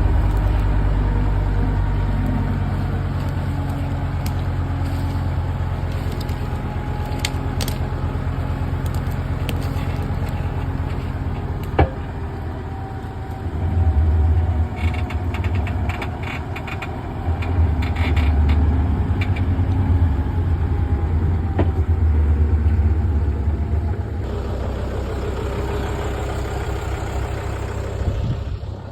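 Heavy diesel engine of a forestry machine running, swelling louder under load three times in the second half. A single sharp snap comes about twelve seconds in, followed by bursts of crackling.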